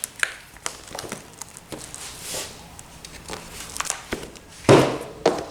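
Handling noise: light rustling and scattered clicks of things being moved about, with a louder rustle near the end.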